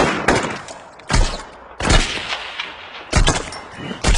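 A firefight's rifle gunfire: about six loud shots at irregular intervals over four seconds, each trailing off with an echo.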